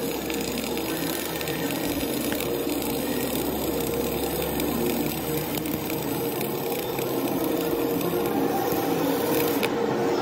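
Flux-core arc welding on a steel stiffener plate: the arc running steadily through a vertical-up pass, cutting out near the end as the weld is finished.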